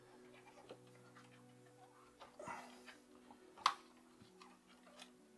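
Faint small clicks and light scraping of plastic parts as a wire is worked out of a plastic retaining tab inside a robot vacuum, with one sharper click a little past halfway. A faint steady hum sits underneath.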